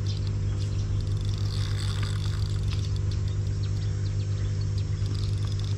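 Steady low mechanical hum with a few overtones, from a pond aerator's motor running on the lake, with a few faint ticks over it.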